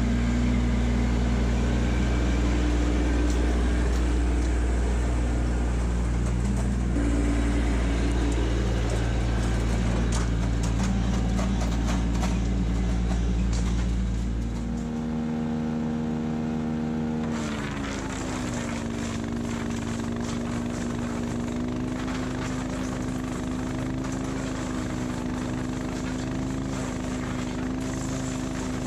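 Kubota LX2610 compact tractor's three-cylinder diesel engine running steadily while the tractor is under way. About halfway through, the engine note changes and drops in pitch, then holds steady again.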